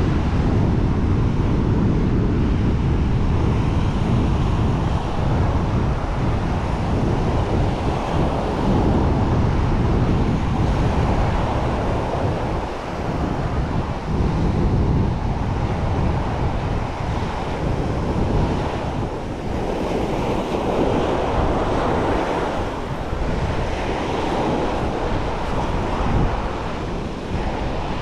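Sea waves washing onto a sandy shore in surging swells, under a heavy rumble of wind buffeting the microphone.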